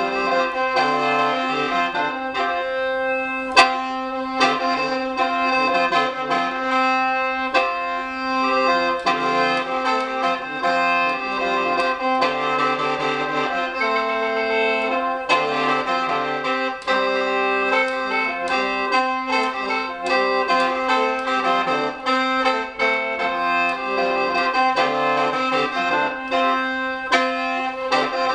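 Khaen, the Lao bamboo free-reed mouth organ, in a D-minor scale, played solo: a lively, rhythmically tongued melody over steady held drone notes. A single sharp click stands out a few seconds in.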